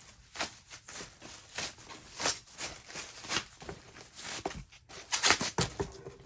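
Rustling and handling of packaging and accessories during an unboxing: a quick series of short scrapes and crinkles, with the loudest cluster a little after five seconds in.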